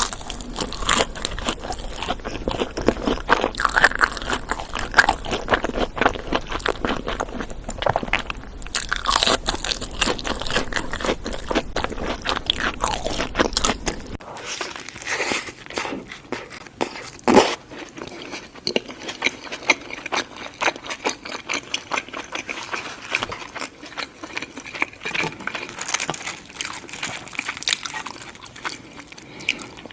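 Close-miked crunching and chewing of fast food, a steady run of irregular crisp bites, with one sharper crunch a little past halfway. A low background hum drops out about halfway through.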